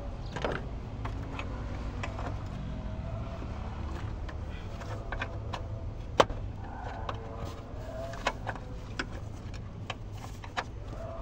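Wrenches and other hand tools clicking and clinking on metal while a horn is fitted to a truck, over a steady low hum. The sharpest click comes about six seconds in.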